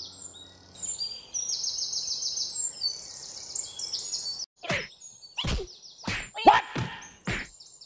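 Ambience of birds chirping in quick high trills over a faint outdoor hiss. About four and a half seconds in, the birds stop and a run of short knocks or thumps follows, roughly half a second apart.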